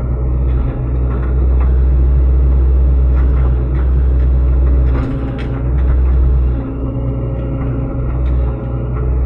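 Sany SY75C excavator's diesel engine running under load while the hydraulics dig out a bamboo clump. The low engine drone dips and picks up again as the load changes, with a few sharp knocks or cracks, the clearest about five seconds in.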